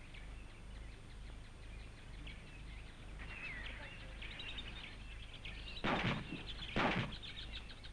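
Small birds chirping over a steady background hiss, with two short, loud rushes of noise about a second apart near the end.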